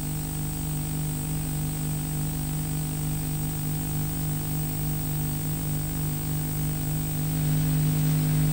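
Steady electrical hum and hiss with several held tones, growing a little louder near the end.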